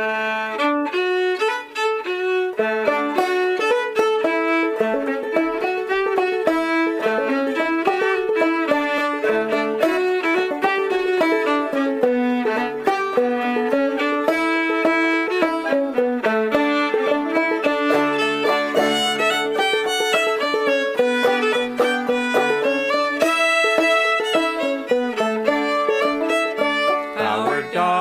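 Instrumental bluegrass-style tune in the key of D: a fiddle plays the melody over banjo accompaniment.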